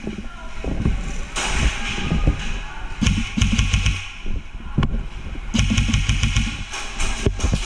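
Airsoft rifle firing two short full-auto bursts of rapid, evenly spaced cracks, one about three seconds in and a longer one around six seconds in, among low thuds and knocks.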